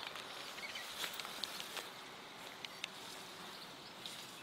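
Faint rustling of grass and leaves being handled, with a scatter of small crackling clicks in the first three seconds.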